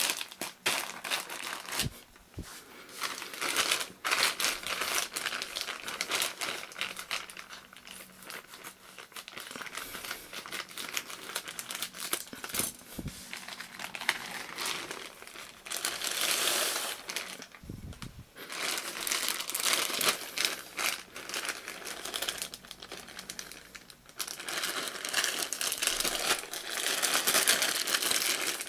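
Grey plastic poly mailer bag crinkling and rustling as it is handled and cut open with scissors, with a few sharp clicks along the way.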